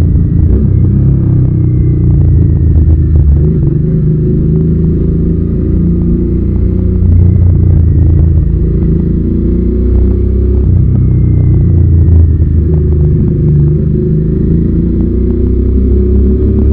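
Suzuki SV650's 645 cc V-twin engine running under way, loud and continuous, its note rising and falling with the throttle.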